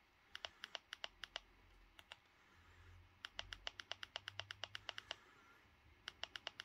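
Faint quick clicks in three runs, about seven a second, one for each step as the selection is scrolled down the lists of a Blu-ray disc menu.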